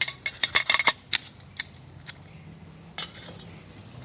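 Metal pot lid clattering and clinking as it is set onto a cooking pot: a quick run of ringing metallic clanks in the first second, then a few lighter clicks.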